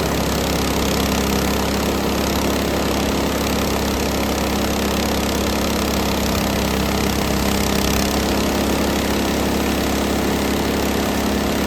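Small gas engine of a Frontier OS18 portable bandsaw mill running at a steady speed while the band blade cuts a slab from a black walnut branch.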